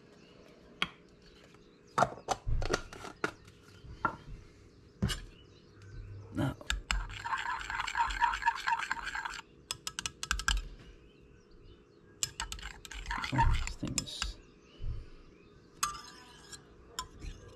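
A stirrer clinking, knocking and scraping against the inside of a glass measuring cup while thick liquid plastisol is mixed. There are scattered single knocks, and two stretches of quick, dense scraping about seven and twelve seconds in.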